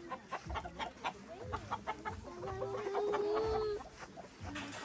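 Chickens clucking in short, sharp calls, with one long, steady call held for about a second and a half near the middle.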